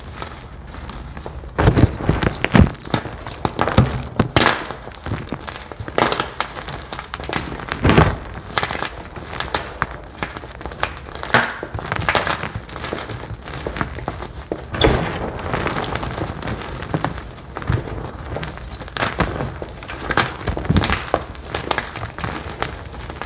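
Crunchy dye blocks crushed in bare hands: irregular sharp cracks as chunks snap, between gritty crumbling of fragments and powder.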